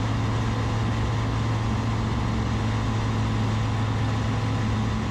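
Rotax 912ULS four-cylinder engine and propeller of a Zenith STOL CH 701 droning steadily in cruise flight, heard inside the cabin as an even low hum over a constant rush.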